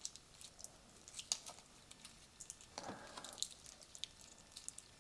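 Faint handling noise of an all-metal G-Shock watch bracelet still wrapped in plastic film: scattered light clicks of the links and a soft plastic rustle about three seconds in.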